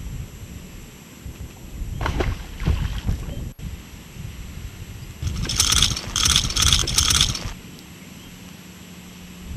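Dull knocks and handling sounds on a boat deck, then about two seconds of quick, bright metallic jingling: a fishing lure and its treble hooks rattling as they are handled.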